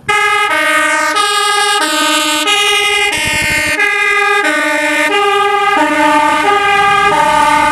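Two-tone hi-lo fire engine siren, electronic and buzzy-sounding, alternating steadily between a high and a low note, each held a little over half a second.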